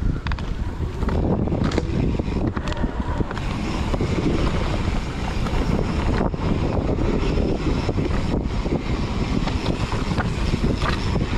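Mountain bike rolling fast down a dirt singletrack: wind rushing over the microphone, with tyre noise on the dirt and short knocks and rattles from the bike over bumps. It gets louder about a second in as the bike picks up speed.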